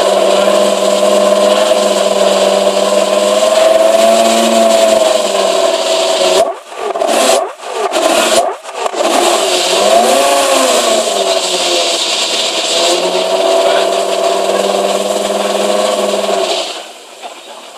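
Porsche Carrera GT's V10 running loud and steady at the exhaust, its note wavering a little, with three quick throttle blips a little after the middle; the engine note stops about a second before the end.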